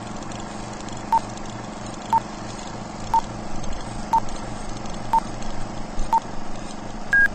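Film-leader countdown sound effect: a short beep once a second, six times, over a steady hiss and low hum, then one higher beep near the end before the sound cuts off suddenly.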